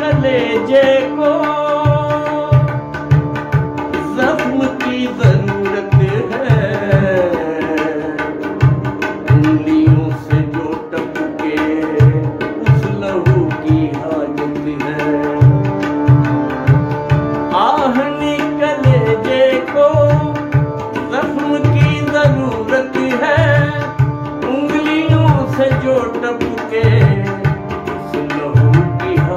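Ghazal music: a harmonium playing with a man's singing voice that glides through the melody, over a steady low hand-drum rhythm.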